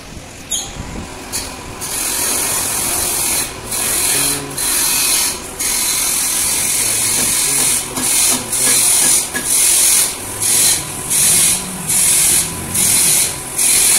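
Hand-held abrasive pad rasping in repeated strokes as a steel wheel rim is cleaned. Long, continuous rubbing at first, then short, even strokes about two a second from about halfway.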